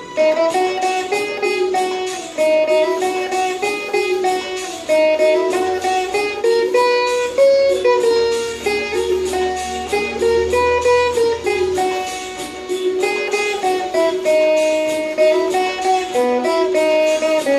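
Saraswati veena plucked, playing a slow song melody note by note over a karaoke backing track with a steady beat.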